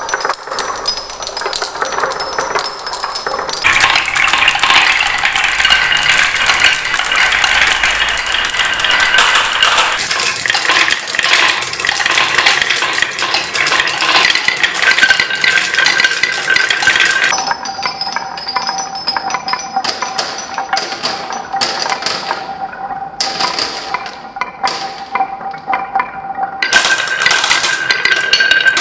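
Many marbles clattering and clicking as they roll and drop down a toy marble run track. The clicking is continuous and dense, with a few steady ringing tones under it, and its character changes abruptly several times.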